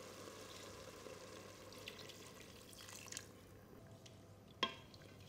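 Chicken stock poured from a jug into a pot of curry: a faint steady trickle for about three seconds. A single sharp knock follows about four and a half seconds in.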